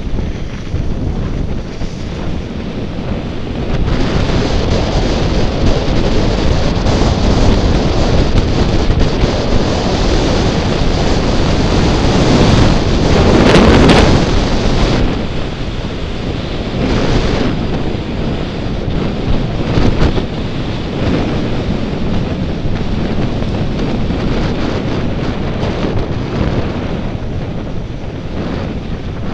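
Wind rushing over the camera microphone during a fast downhill run, mixed with the hiss of sliding over groomed snow. It swells to its loudest about halfway through, then eases.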